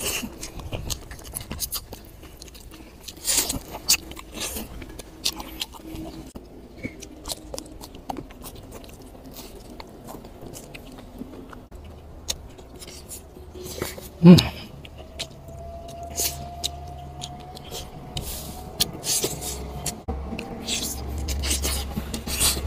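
Close-miked eating: chewing and lip smacks with many small clicks as grilled fish is pulled apart by hand and eaten. There is one louder short sound about two-thirds of the way in, and a low rumble builds through the second half.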